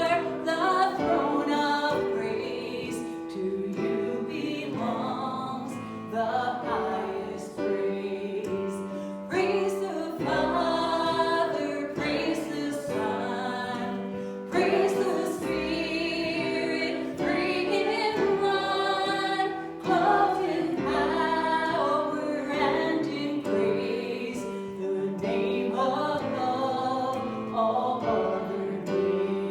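Congregational worship singing, voices together holding long notes over steady instrumental accompaniment.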